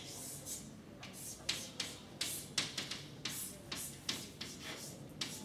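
Chalk writing on a blackboard: an irregular string of short taps and scrapes, about two or three strokes a second, as letters and symbols are written.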